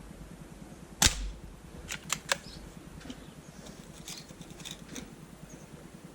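Gamo PR-45 single-stroke pneumatic air pistol firing one sharp shot about a second in, followed by a few lighter clicks.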